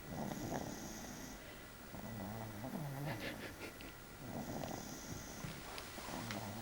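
A boy snoring in his sleep: slow, regular breaths, with a low snore on some breaths about every four seconds and breathy exhales in between.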